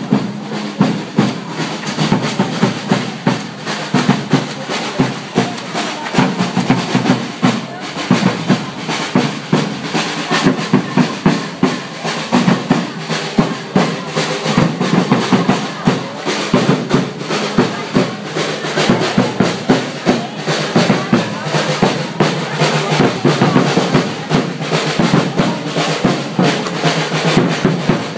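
A percussion group of large strapped drums playing a steady rhythm, with crowd voices underneath.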